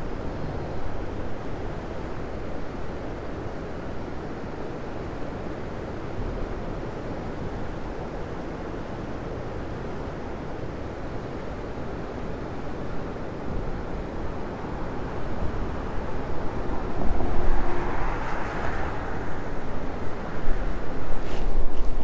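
Blizzard wind buffeting the microphone: a steady rushing roar with a heavy low rumble, gusting louder near the end.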